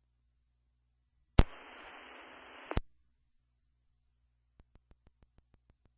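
Fire department two-way radio channel heard through a scanner feed. A sharp click about a second and a half in as a radio keys up, then a second or so of open static hiss with no voice, then another click as it unkeys. A run of faint, evenly spaced ticks follows near the end.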